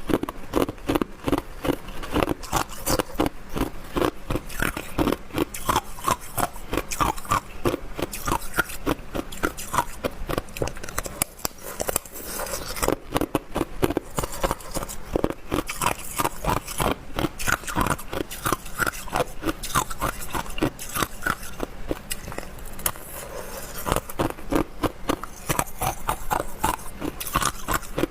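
Hard ice being bitten and chewed close to the microphone: a fast run of crisp crunches, several a second, with a short lull about eleven seconds in.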